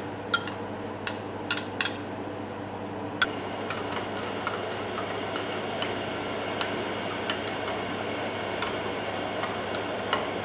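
A metal spoon clinking against glass: a few separate clicks in the first two seconds as honey is scraped out of a small glass, then light, regular ticks, about one every two-thirds of a second, as a teaspoon stirs rennet and milk in a small glass bowl. A steady low hum runs underneath.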